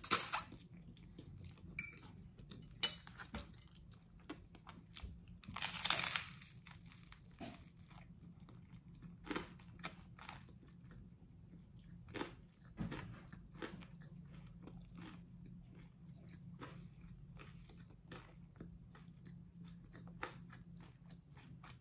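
Close-miked eating: spaghetti sucked in at the start, then crisp crunching bites and chewing of toasted garlic bread, with short crunches every second or so.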